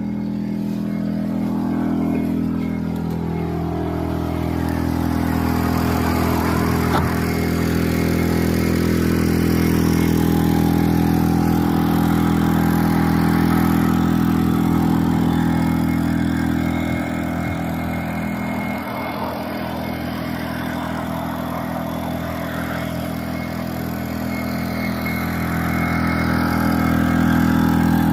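Engine-driven portable generator running steadily under load while charging an electric car, its level swelling and easing slightly a few times.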